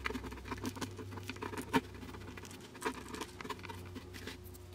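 Light clicks and scrapes of a plastic measuring cup being handled, with a sharper click about two seconds in and another near three seconds, over a faint steady hum.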